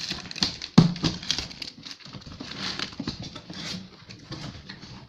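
Cardboard box and packaging being handled and rummaged through: rustling with scattered clicks and knocks, the loudest knock a little under a second in.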